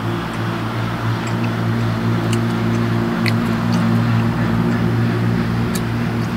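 A vehicle engine's steady low hum, swelling a little in the middle, over a light hiss, with a few faint ticks.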